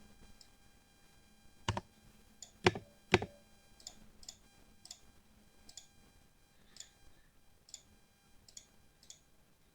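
Keys of a lubed mechanical RGB keyboard being pressed one at a time: three loud, deep keystrokes about two to three seconds in, then lighter single key clicks every half second or so.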